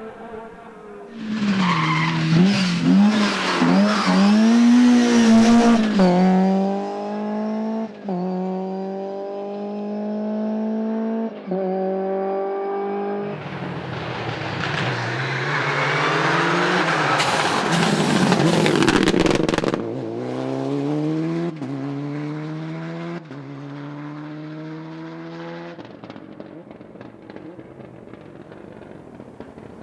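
Two rally cars at speed, one after the other, each passing close with tyre noise and a wavering engine note. Each then accelerates away through several upshifts, the engine pitch climbing and dropping at every gear change as it fades.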